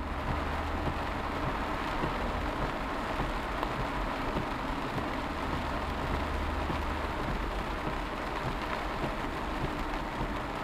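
Rain falling on a moving car, heard from inside the cabin as a steady hiss, over the low hum of the car driving on the wet road.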